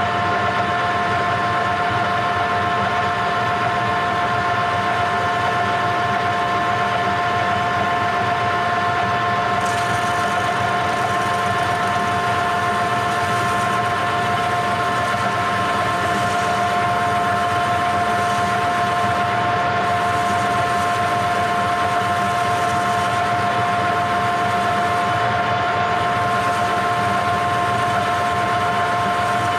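Electric machine motor running steadily, with a constant whine of two strong tones.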